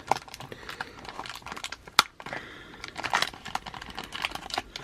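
A sealed baseball card pack's paper wrapper being worked open by hand, crinkling and crackling in quick irregular clicks, with one sharp snap about two seconds in.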